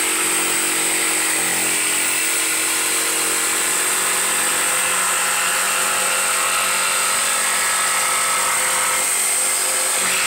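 Corded jigsaw running steadily at full speed, its reciprocating blade cutting a curve through a sheet of plywood, with a high-pitched motor whine.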